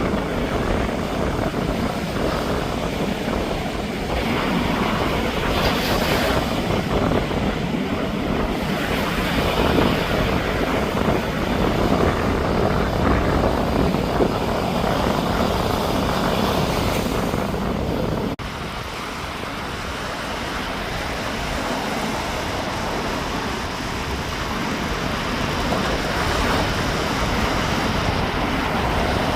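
Sea waves washing onto the beach, with wind rumbling on the microphone. The sound drops suddenly about two-thirds of the way through, then slowly builds again.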